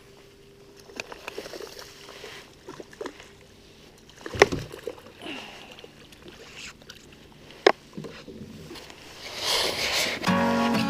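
Water splashing as a hooked fish thrashes at the surface beside a boat, with scattered small clicks and a few sharp knocks, the loudest about four seconds in. Guitar music comes in near the end.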